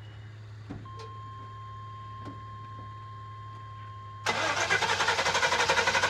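A steady high tone comes on about a second in, then, about four seconds in, the van's starter suddenly kicks in and cranks the engine with a fast, even pulsing churn.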